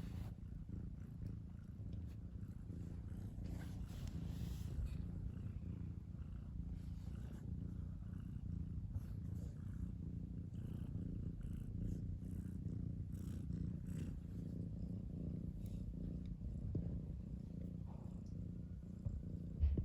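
Domestic cat purring steadily, with a brief bump just before the end.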